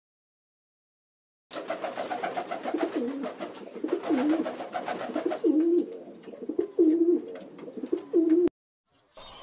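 A flock of pigeons cooing, low gliding coos about once a second, over a rapid clatter of wingbeats as several birds flap up off the ground. The sound starts about a second and a half in and cuts off suddenly near the end.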